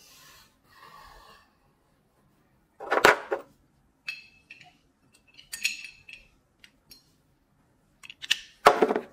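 Hand tools being handled and gathered up: a sharp clatter about three seconds in, a few light ringing metal clinks, then a run of clattering near the end.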